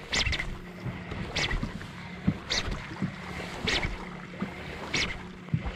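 Fishing boat trolling through choppy water: a steady low motor hum, with a short splash or hiss about once a second.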